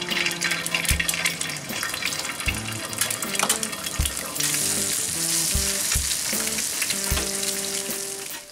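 Eggs frying in bacon grease on a griddle over a propane camp stove: steady sizzling and crackling, louder from about halfway in. Background music with low notes and a regular beat runs underneath.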